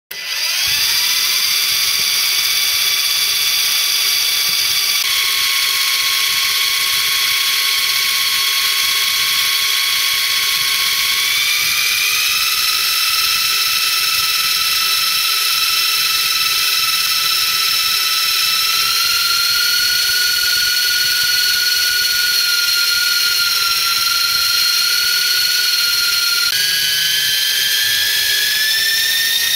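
Modified Double Horse 9088 Apache coaxial RC helicopter's electric motors spinning up its rotors on the ground: a loud whine with several tones, which the owner likens to spinning turbines. It rises quickly as the rotors come up to speed, holds steady with a few shifts in pitch, and climbs again near the end as the throttle is raised before lift-off.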